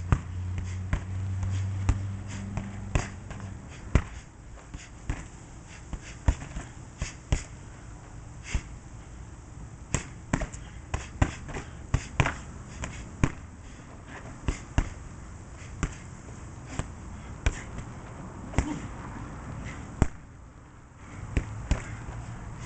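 Gloved punches landing on a hanging Everlast heavy punching bag: sharp thuds in irregular combinations of two to four quick hits, with short pauses between them.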